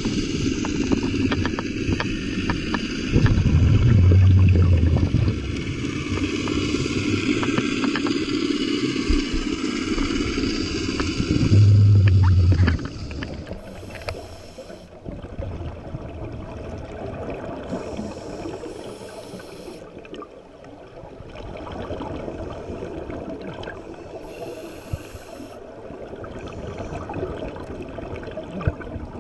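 Muffled underwater noise heard through a diving camera's housing, with low rumbling bubble bursts from scuba divers' exhaled breath, loudest about 3 seconds in and again about 12 seconds in. After about 13 seconds it turns quieter and hazier.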